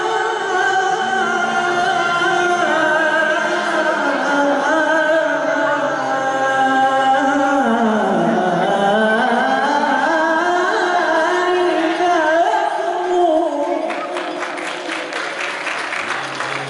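Unaccompanied male singing of a Moroccan madih and sama' devotional hymn: a slow, ornamented line of long held notes that slides between pitches, with a deep swoop down and back up about halfway through.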